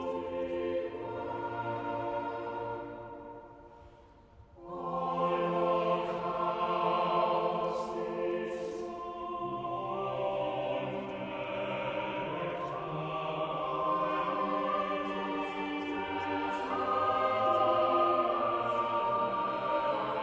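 A choir singing in harmony, holding long chords that change step by step. It fades out about three seconds in and comes back about four and a half seconds in.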